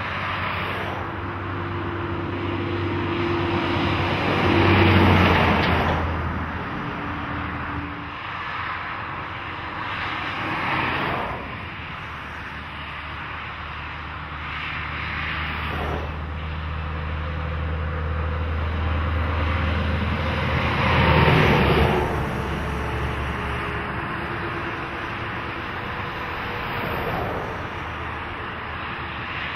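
Heavy diesel semi-trailer trucks and cars passing one after another on a highway, tyre noise and a low engine drone swelling and fading with each pass. The loudest passes come about five and twenty-one seconds in.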